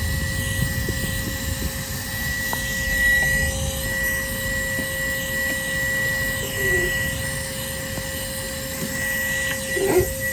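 Vacuum running steadily with an even high whine, its narrow hose down a spark plug tube sucking out loosened debris. A few light ticks, and a knock near the end.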